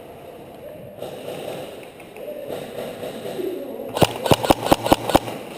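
Airsoft gun firing a quick string of about six sharp shots, around five or six a second, near the end, over faint background voices.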